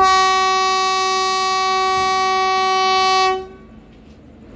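Train horn sounding one long, steady blast of a single pitch, about three and a half seconds, that cuts off sharply.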